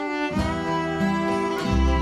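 Instrumental break in a Celtic folk song: fiddle playing the melody over guitar, with a bass coming in about half a second in.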